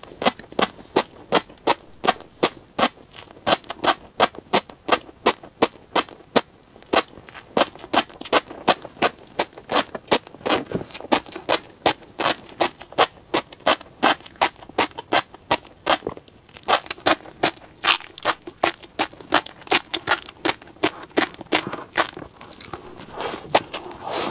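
Close-miked chewing of tobiko (flying fish roe): the tiny eggs popping in the mouth in quick, sharp clicks, about three or four a second.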